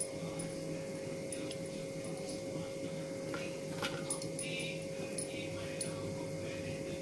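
Faint clicks and rustling of hands working khoya filling into a plastic modak mould, over a steady electrical hum. A short, high, wavering whine comes about four and a half seconds in.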